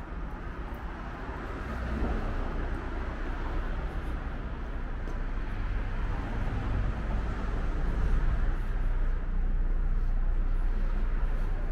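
Steady low rumbling noise, like a vehicle running, growing somewhat louder toward the end.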